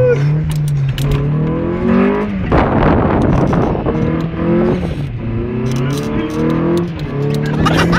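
Honda CRX VTi's 1.6-litre four-cylinder VTEC engine revving up and dropping back again and again as the car is driven hard, heard from inside the cabin, with a rush of noise about two and a half seconds in.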